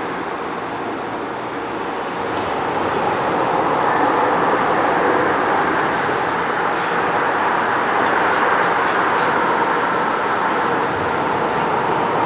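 Freight cars rolling along the rails: steady wheel-on-rail noise that grows louder about two seconds in, with a few faint clicks.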